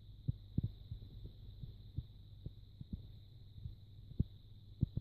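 Irregular soft low thumps, about a dozen, over a steady low hum and a faint high-pitched whine.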